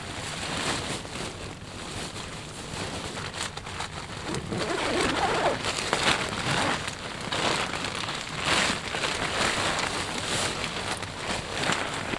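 Bedroll fabric and dry leaf litter rustling and crinkling in uneven strokes as a person shifts around and settles into a bedroll on the ground.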